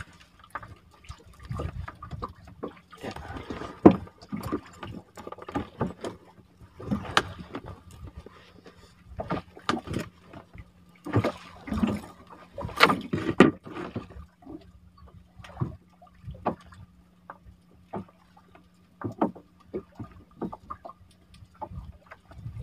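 Irregular knocks, clicks and rustles of handline fishing gear being handled in a small wooden boat, with water splashing and dripping.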